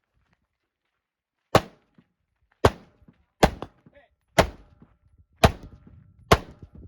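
Rifle shots fired in a steady string: six shots, roughly one a second, starting about a second and a half in.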